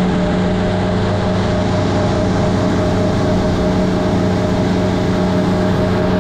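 Boat motor running at a steady speed, a constant hum over a steady rushing noise.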